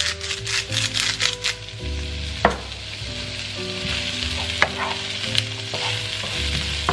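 Sausage meat and chopped onion sizzling as they fry in a non-stick frying pan. In the first second and a half there is a rapid run of ticks from a grinder seasoning the pan, and a few single clicks follow later.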